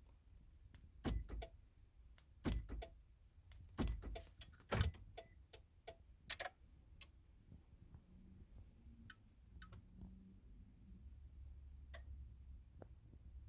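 Irregular sharp clicks and a key-ring jingle from the ignition of a 2013 Toyota Tundra being tried, with no engine cranking or running: the truck fails to start. A faint low hum follows in the second half.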